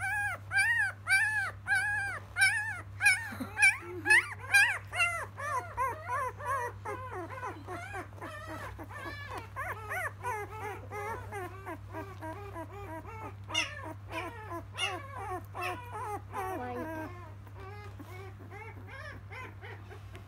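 A 12-day-old field-type Labrador retriever puppy whimpering and crying after being turned upside down on its back: a quick string of short squeals that rise and fall, loudest in the first five seconds, then softer, stopping a few seconds before the end.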